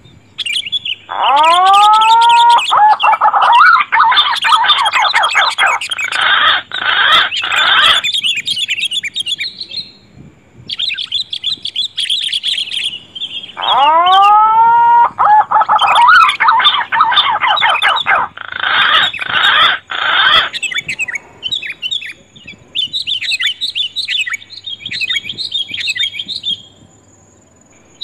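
Bird-lure recording mixing green pigeon (punai) whistles with sooty-headed bulbul (kutilang) chirping, looped so that the same sequence plays twice. Each pass opens with rising whistles, then dense, fast chirping, with lighter scattered chirps between the passes.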